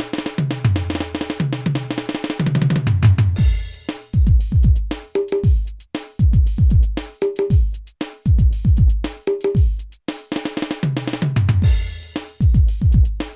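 Octapad electronic drum pad playing a repeating drum rhythm: deep drum hits whose pitch drops after each strike, with sharp snare and rim strikes, and a busier cymbal-like stretch over the first three seconds.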